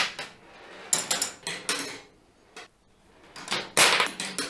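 Clicks and clatter of Makeway magnetic marble-run parts, plastic holders and rails, being handled and snapped onto the metal board: a few sharp clicks about a second in, a pause, then a denser clatter near the end.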